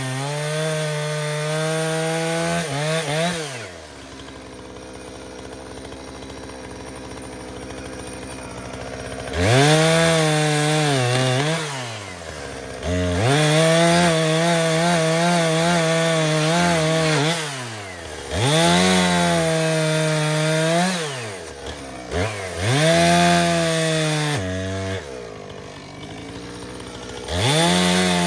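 Two-stroke chainsaw working at full throttle, dropping to idle for several seconds about three seconds in. It then revs up again in about five bursts of two to four seconds each, easing back between them, with the pitch wavering during each burst.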